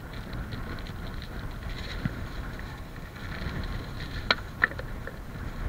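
Wind rumbling on the microphone, with two sharp clicks in quick succession a little after four seconds in.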